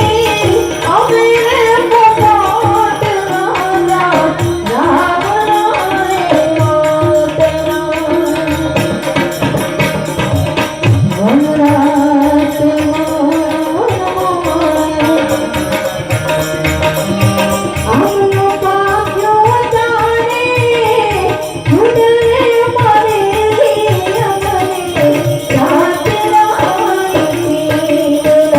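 Gujarati devotional-folk song: a voice singing a melody in long, gliding held notes over steady hand-drum percussion.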